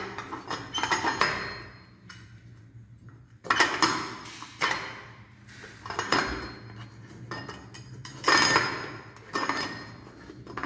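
Chrome escutcheon cover of a shower gate valve being twisted off by hand, metal scraping and clinking against the valve in about four short bursts with brief pauses between.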